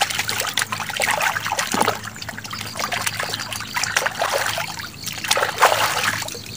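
Hands washing a freshly picked fruit in shallow ditch water: irregular splashing and sloshing as it is rubbed and swirled, with water trickling off it.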